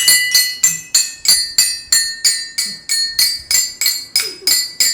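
A toddler hitting a toy xylophone with its mallet over and over, about three strikes a second, each bar ringing with a high, bright metallic tone.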